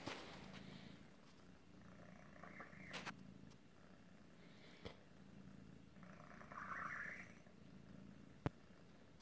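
Faint, steady cat purring, with a squeaky, wheezy breath about six to seven seconds in. This cat has a deformity that sometimes makes his breathing squeaky and laboured, like asthma. A sharp click comes near the end.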